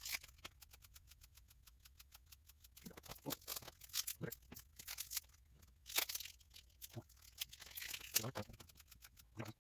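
Wax-paper baseball card pack wrappers being torn open and crinkled, a run of crackles and small clicks with a few louder tearing strokes.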